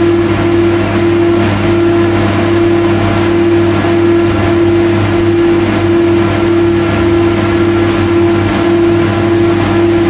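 Factory machinery ambience: a steady, loud machine hum with a strong held drone and several fainter steady tones over a constant mechanical rumble.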